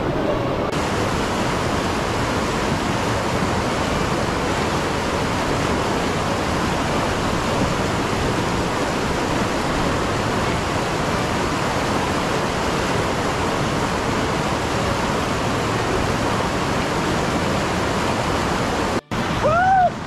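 Steady rushing of white-water rapids, a dense unbroken roar of churning river water. About a second before the end the sound cuts out for an instant, followed by a brief rising-and-falling voice cry.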